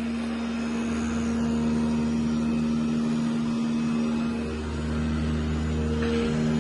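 CNC foam cutting machine running: a steady electric-motor hum with a strong constant tone. Some of its tones shift slightly about four and a half seconds in and again near the end.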